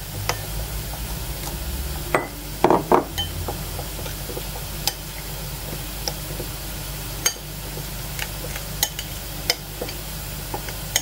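A metal spoon stirring spice powder and water into a paste in a ceramic bowl, with scattered light clinks of spoon against bowl over a steady low hum.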